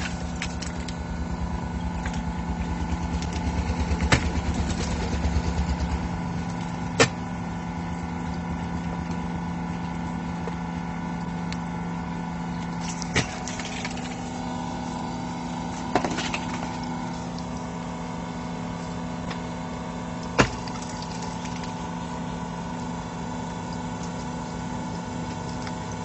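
Hydraulic power source of a pile breaker running steadily, heavier and pulsing under load for the first six seconds before settling, while the breaker's chisels squeeze the pile. About five sharp cracks ring out at irregular intervals.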